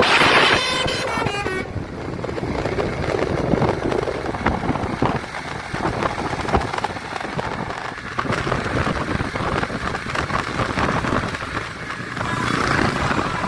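Knockoff 'basuri' telolet multi-tone air horn sounding loudly at the start and dying away within the first second or two, followed by running vehicle and street noise.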